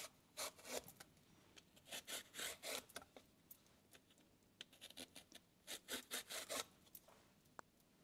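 Vegetable peeler shaving strips off a hard zucchini: faint, short scraping strokes in quick runs, near the start, about two seconds in and again about six seconds in.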